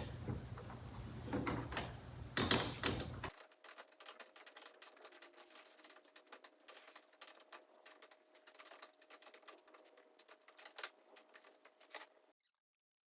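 A few knocks, then a long run of faint, rapid, irregular clicking with a faint steady hum behind it, all stopping about twelve seconds in: small parts and hand tools being worked while a part is secured back on in the car.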